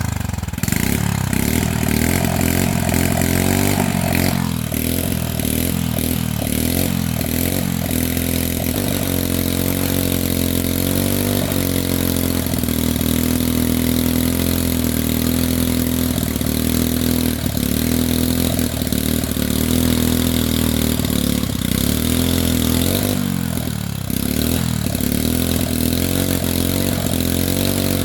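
A small petrol engine, started just before, running steadily at a low idle with slight wavers in pitch.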